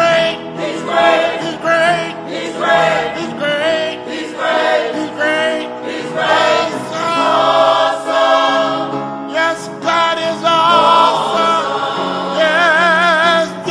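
Gospel choir singing in harmony, the voices held in long phrases with a wide vibrato, accompanied on keyboard.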